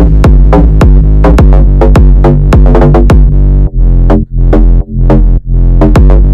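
Loud electronic hip-hop music with a heavy drum-machine beat and synthesizer bass; the beat cuts out briefly several times around the middle.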